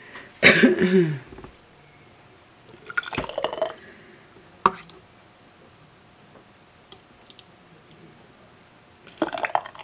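Thick BBQ sauce plopping and squishing through a plastic canning funnel into a glass mason jar, in a few separate bursts with light clicks between them.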